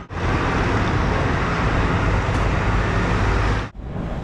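Steady, loud rushing noise with a low hum, like a motor vehicle running; it cuts off abruptly near the end, leaving a quieter steady background.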